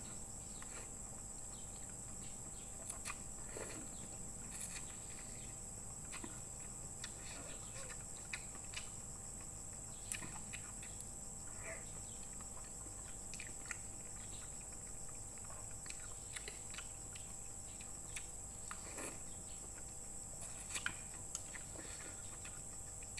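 Mukbang eating sounds: misua noodle soup being slurped and chewed, with scattered short clicks of a metal fork and spoon against a plate. A steady high-pitched whine sits underneath.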